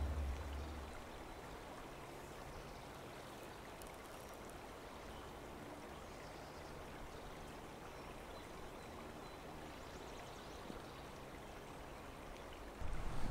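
Faint, steady rushing background noise with no distinct events. Just before the end, a louder, lower rumble suddenly comes in.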